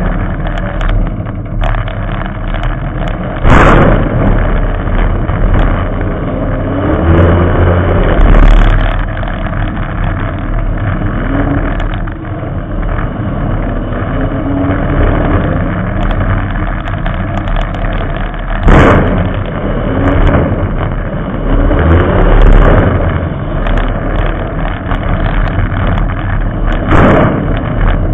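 Figure-8 race car engine running hard on the track, its revs rising and falling again and again through the turns, loud and rough as picked up by a camera mounted on the car's hood. A few sharp knocks cut through it, one a few seconds in, one past the middle and one near the end.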